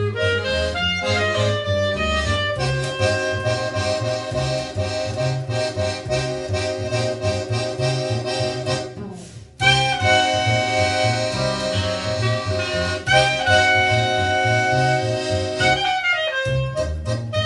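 A guitar, accordion and bass trio playing a jazzy tune live: the accordion holds chords over a steady, pulsing bass line. About nine seconds in, the music thins almost to nothing, then comes back with full accordion chords.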